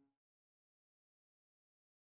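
Near silence: a faint held note of background music cuts off just at the start, then complete digital silence.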